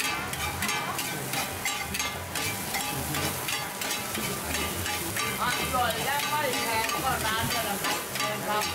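Two metal spatulas scraping and clinking rapidly against a wide, oiled pan as an oyster omelet (hoy tod) is chopped up and turned, over a steady sizzle of frying oil.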